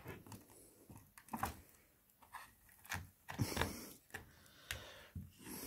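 Faint scattered clicks and crinkles of a knife and a foil tart case, as a slice of chocolate tart is cut free and lifted out of the case; the busiest stretch comes about three to four seconds in.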